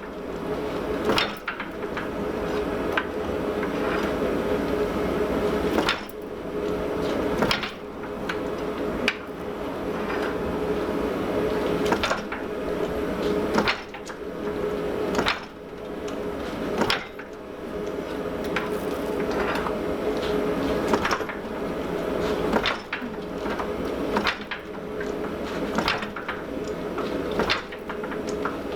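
Fly press stroking down on hot forged steel, a sharp clank about every second and a half as the workpiece is worked around to set down the centre boss, over a steady background hum.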